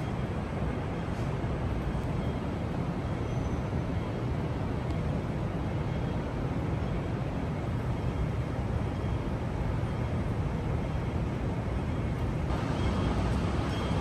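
Steady airport terminal background noise: an even low-pitched din with no distinct events.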